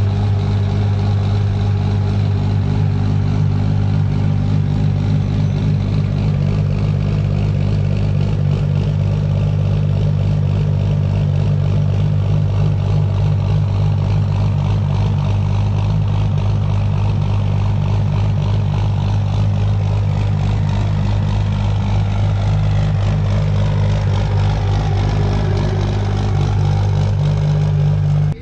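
Cummins inline-six diesel engine in a drag truck, idling steadily with a deep, even low drone.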